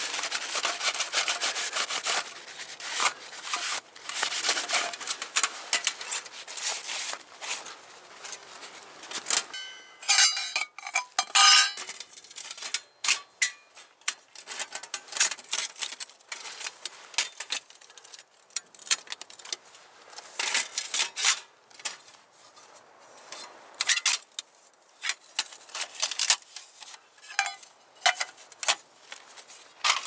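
Thin titanium panels of a Firebox folding camp stove clicking, scraping and clinking as the hinged stove is opened into a box and folded flat by hand, with a run of ringing metal clinks about ten seconds in.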